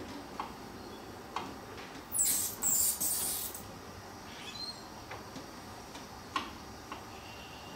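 A gas torch hissing loudly in two short pulses about two seconds in, amid scattered sharp metal clicks and faint squeaks as the torch is worked around the steering column of a John Deere 430 lawn tractor.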